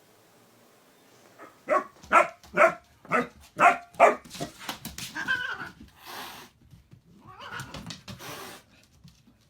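A dog barking: six loud barks in quick succession starting a little under two seconds in, followed by quieter, softer noises.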